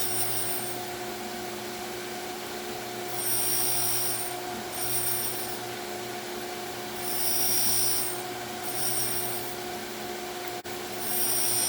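Surface grinder wheel running with a steady hum while it grinds the magnetic chuck. A high grinding hiss comes and goes every second or two as the table carries the chuck back and forth under the wheel, sounding only where the wheel meets the chuck's high spots.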